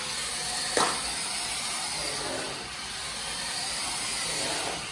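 WPL D12 RC truck's brushed motor and gears running at speed on its fast setting, its tyres on a laminate floor, a steady whirring hiss. A sharp knock about a second in.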